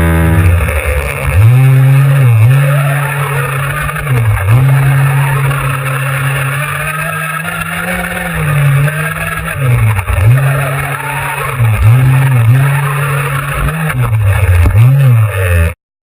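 Motor of a 1:5 scale Reely Carbon Fighter RC off-road car running at steady revs, dropping and picking up again every second or two as the throttle is let off and opened. The sound cuts off suddenly near the end.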